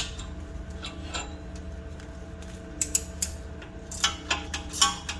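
Irregular sharp metallic clicks and clinks of hand tools working a suspension bolt, a few at first, then a quicker cluster near the end, over a steady low hum.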